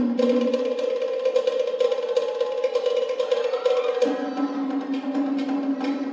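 Cook Islands drumming: rapid, dense strikes on wooden log drums over a rolling held pitch that drops lower about four seconds in.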